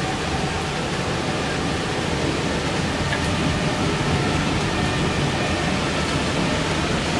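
Heavy thunderstorm rain and storm-gust wind, a steady, even rushing noise.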